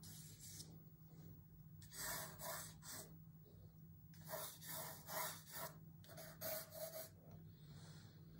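Pencil lead scratching across drawing paper in long strokes, in three short runs of strokes, over a faint steady low hum.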